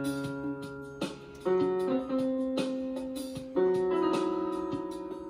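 Electronic keyboard with a piano-like voice sounding held notes and chords. New notes come in about a second in, at about one and a half and two seconds, and again near three and a half and four seconds, each ringing on and slowly fading.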